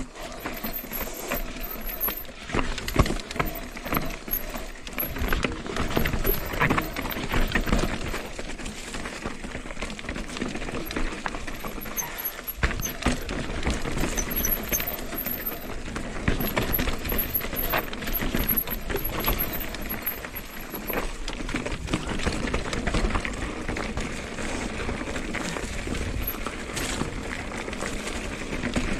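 Mountain bike rolling down a rocky trail: tyres crunching over rock and dirt, with constant clattering knocks from the bike jolting over the stones.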